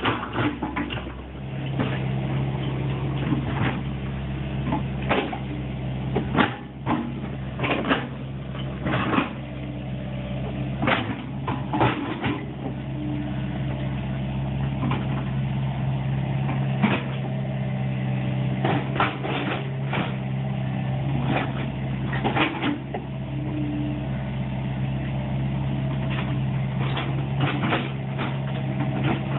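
Excavator at work: its diesel engine runs steadily under load, with many sharp knocks and clanks from the machine working.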